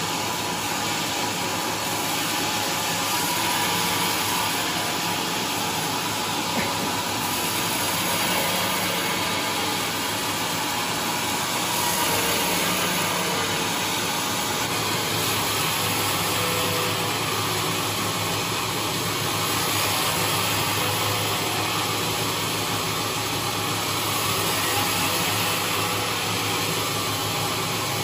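Large vertical band resaw running steadily, its blade cutting lengthwise through a thick trembesi (rain tree) slab. A continuous, even whir and hiss with no breaks.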